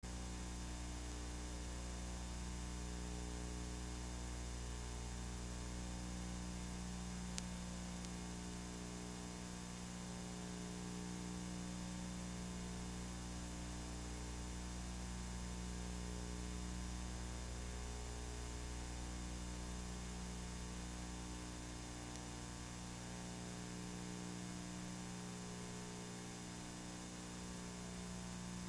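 Steady electrical mains hum with its harmonics over a layer of hiss, with one faint click about seven seconds in.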